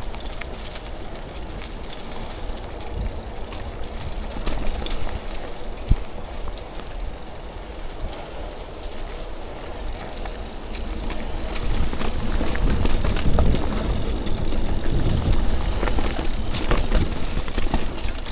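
Mountain bike riding down a dirt trail: tyres rolling over the ground and the bike rattling over bumps, with scattered knocks. It grows louder about two-thirds of the way through.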